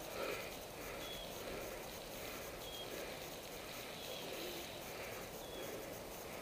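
Quiet forest ambience: a bird repeats a short, thin, high note about every second and a half over a soft steady background hiss.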